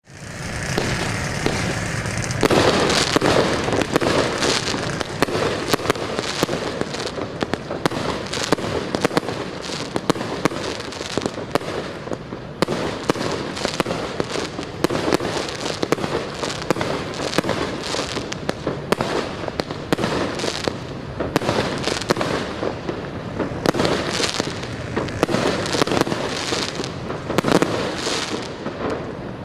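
Fireworks going off: a dense, unbroken run of crackles and pops with louder bangs among them.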